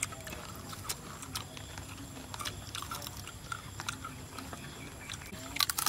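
Crunching and chewing of crispy sugared potato: scattered short crackling clicks, with a cluster of louder crunches near the end.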